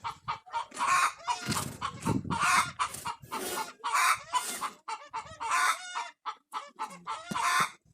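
Chickens clucking and cackling in a dense run of short, pitched calls, several a second.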